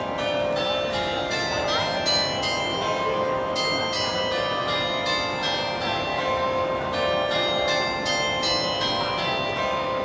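Melbourne Central clock chiming a melody on bells, about three notes a second, each note ringing on into the next.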